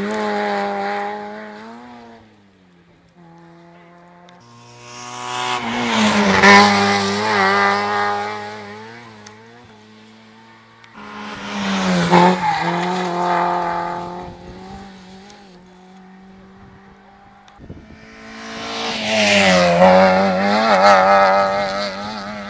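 Rally cars passing one after another at speed, about three loud passes after one already going by at the start. Their engines rev hard, with the pitch stepping up and down through gear changes.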